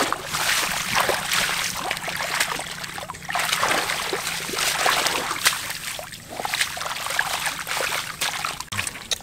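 Shallow water splashing and sloshing in uneven bursts as hands rummage through submerged grass to catch fish.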